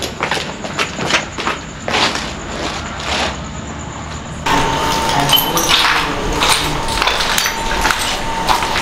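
Footsteps and scuffs on a debris-strewn concrete floor: a scatter of short, sharp clicks and knocks. About halfway through the sound changes abruptly and a faint steady high tone runs under the clicks.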